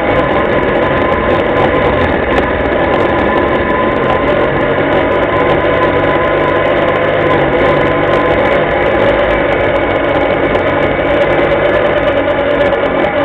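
Linhai ATV engine running steadily as the quad rides along, heard from on board the machine. The hum is loud and even, with no big revs.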